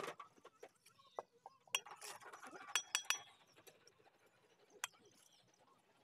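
Mason's steel trowel clinking against fired clay bricks and scraping mortar as bricks are set and tapped into place: a handful of sharp, short clinks, some ringing briefly.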